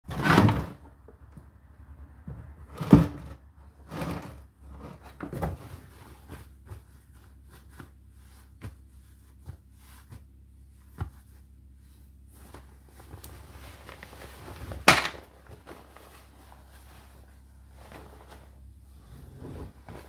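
A hand handles dried laundry in the open drum of an Indesit condenser tumble dryer: fabric rustles, with several sharp knocks and thunks against the drum and door, the loudest about three seconds in and another near fifteen seconds. A faint steady hum runs underneath.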